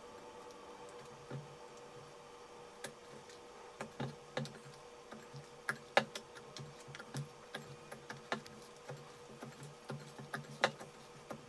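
Slime being mixed and kneaded by hand, giving irregular sticky clicks and small pops at uneven intervals, over a faint steady hum.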